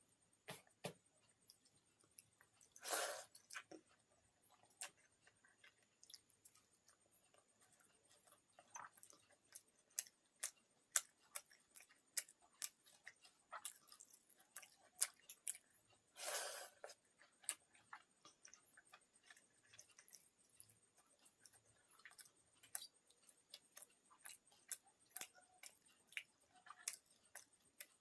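Close-up eating sounds from a meal of pakhala: faint chewing and many short sharp mouth and finger clicks, with two louder, longer noisy sounds about three seconds in and again about sixteen seconds in.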